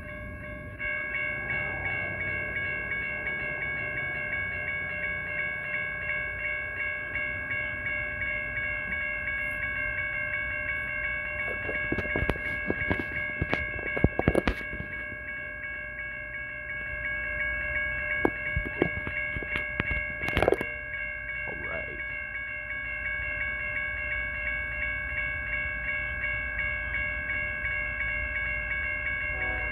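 Railroad crossing bells, a GS Type 1 and a Safetran Type 3, start up as the crossing activates and ring continuously with rapid strikes. A cluster of sharp knocks comes near the middle and a single one a few seconds later, with a low rumble building toward the end.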